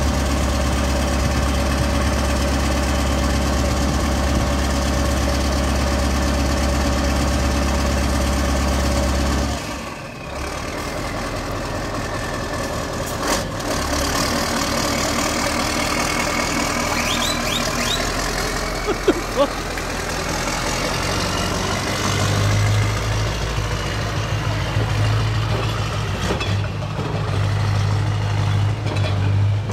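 Scania 144C 530 heavy recovery truck's V8 diesel idling steadily, its deep note dropping away about ten seconds in. After a few short sharp sounds, the engine settles into a higher, stronger running note as the truck moves off.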